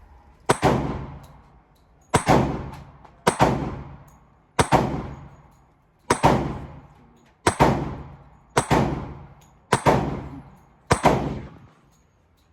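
Nine gunshots fired one after another, roughly one every second and a half, each a sharp crack that rings out and dies away before the next.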